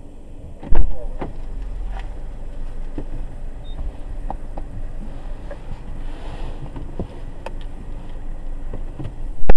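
A heavy thump about a second in, then scattered clicks and knocks over a low rumble inside a stationary car, and another loud thump near the end.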